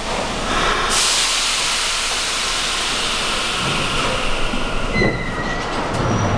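Redbird subway garbage train starting to pull out. There is a loud, steady hiss of air, typical of the brakes releasing, and then thin whining tones from the traction motors come in about five seconds in as the cars begin to roll.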